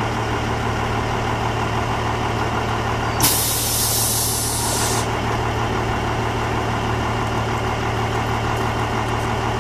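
Cummins N14 six-cylinder diesel of a Freightliner FLD120 dump truck idling steadily. About three seconds in, a loud hiss of compressed air being released starts sharply and lasts nearly two seconds.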